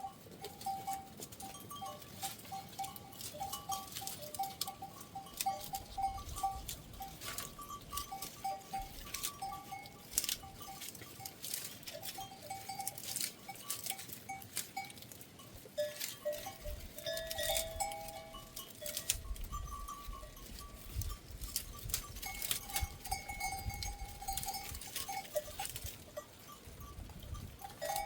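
Livestock bells worn by a goat flock clanking and ringing irregularly as the animals move, with many sharp little clicks and taps mixed in.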